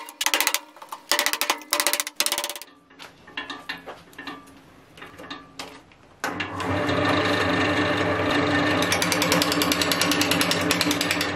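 Mallet blows on a steel chisel, about three a second, chipping bark off an oak root. About six seconds in, an Axminster wood lathe is switched on and runs steadily with a low hum, spinning the large root, and a fast regular rattle joins in a few seconds later.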